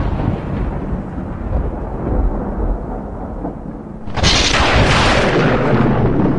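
Thunder rumbling and dying away, then a sudden sharp thunderclap about four seconds in that rolls on loudly.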